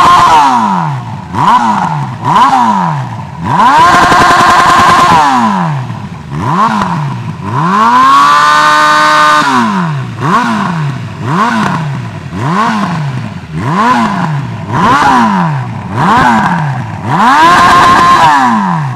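Honda CB1000R inline-four engine revved over and over through a Hurricane Evolution aftermarket slip-on exhaust, with a loud, deep exhaust note. It runs as a string of quick blips that rise and fall back, with longer holds at high revs about four, nine and seventeen seconds in.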